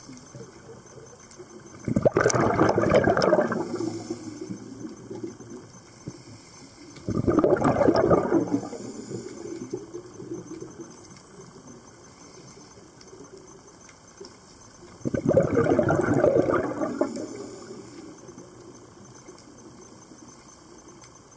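Scuba diver's regulator exhaling, heard underwater: three bubbling bursts of about two seconds each, about two, seven and fifteen seconds in, each starting suddenly and tailing off, with a low steady hiss between breaths.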